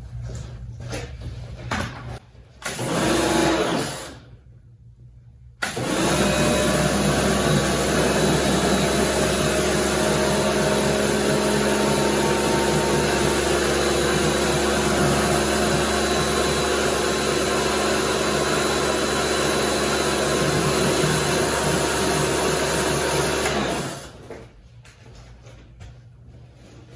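Electric Kärcher pressure washer running and spraying: a short burst about three seconds in, then a long steady spray with the motor's hum from about six seconds in, cutting off suddenly near the end.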